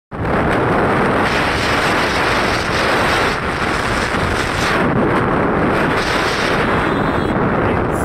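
Steady, loud wind buffeting on the microphone of a moving motorcycle, with engine and road noise underneath.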